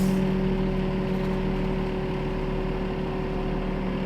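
Flatbed truck's engine running steadily, a constant hum with a few held tones, slightly easing in level; a brief hiss right at the start.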